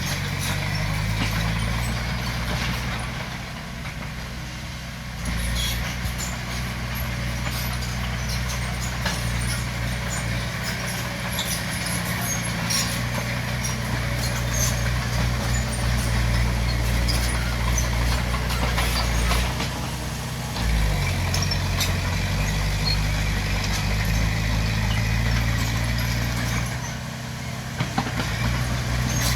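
Bulldozer's diesel engine running steadily under load, easing off and picking up again a few times, with light scattered metallic clicks.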